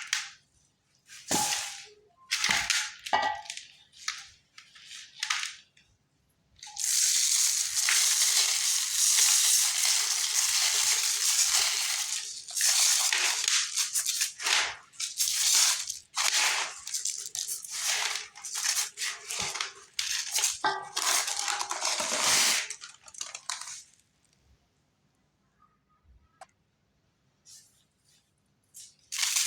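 Chunks of glittery cement crumbling and crunching: a few short bursts, then a long run of nearly continuous crumbling that stops about twenty-four seconds in.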